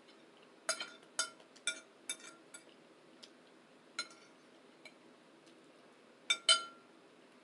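An eating utensil clinking against a dish: a quick run of sharp clicks with a short ring, one more a little later, and a louder pair of clinks near the end.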